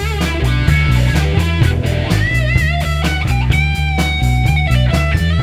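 Instrumental rock band music: a lead guitar line with bends and vibrato over a heavy bass line and a steady drum beat.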